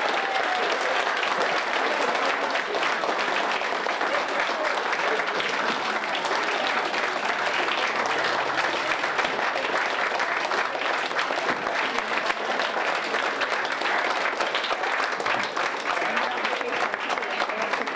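A roomful of people applauding steadily, with voices mixed in among the clapping.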